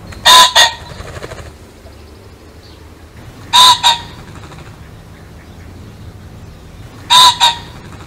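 Pheasant calling: a loud, harsh two-note crow, a strong first note with a short second note right after, repeated three times about three and a half seconds apart over a steady low background hiss.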